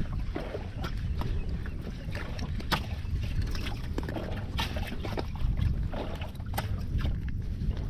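Water lapping and splashing against the side of a small boat, with irregular sloshes and ticks over a steady low rumble.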